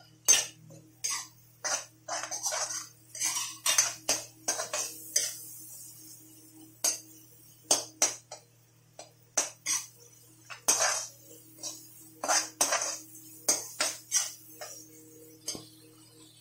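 A metal spoon scraping and clinking against a metal kadai as chopped capsicum and onion are stirred into the masala, in irregular strokes.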